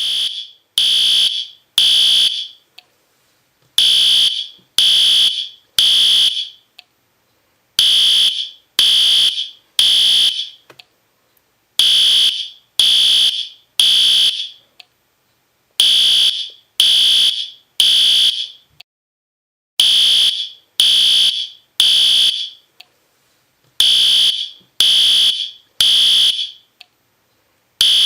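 System Sensor P2R fire alarm horn sounding the temporal-three evacuation pattern: three loud, high-pitched blasts about a second apart, then a pause, repeating every four seconds.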